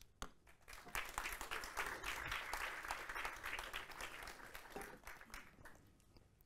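Audience applause, swelling about a second in and dying away near the end.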